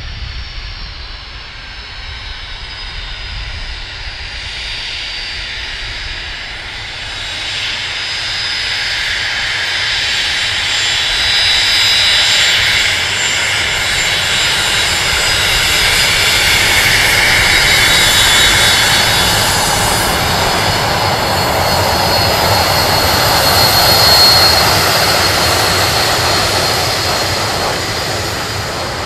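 The four Honeywell LF507 turbofan engines of an Avro RJ100 running as the jet moves past on the runway. It is a high whine of several steady tones over a rumble. The sound swells over the first several seconds, is loudest about three-quarters of the way through, and eases near the end.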